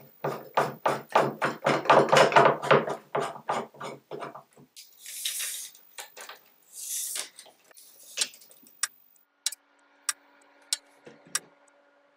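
Band clamp's ratchet being cranked tight around a glued mitered frame: a fast, even run of clicks, about four a second, for some four seconds. Then a steel tape measure is pulled out twice with a short zipping hiss, and a few single light clicks follow near the end.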